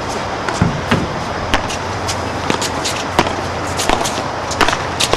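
Padel ball in a rally: a run of sharp knocks, a little more than one a second, from solid paddles striking the ball and the ball bouncing on the court and off the walls, over a steady low background rumble.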